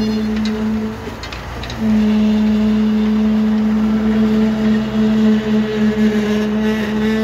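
Steady machine hum with a constant pitch, which cuts out for under a second about a second in and then comes back louder.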